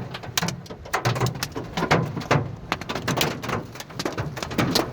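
Quarter-size hailstones pelting the car's hood and roof, heard from inside the cabin as a rapid, irregular clatter of hard knocks.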